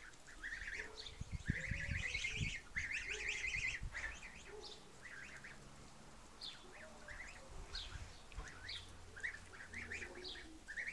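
Domestic geese calling: a dense run of gabbling honks for the first few seconds, then scattered short calls. Low rumbles on the microphone between about one and three seconds in.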